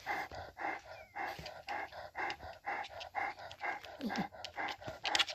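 A dog panting rapidly and steadily, about four breaths a second.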